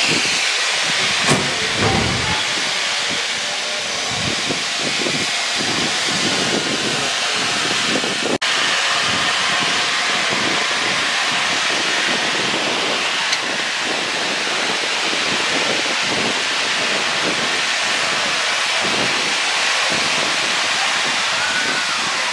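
Steam locomotive letting off steam in a loud, steady hiss.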